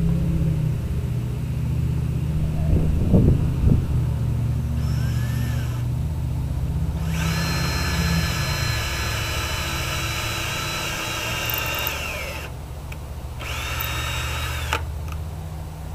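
Ryobi power drill running in long runs with a steady high whine, working on 2x4 boards to join them. A few knocks about three seconds in; the drill stops twice in the last few seconds and starts again each time.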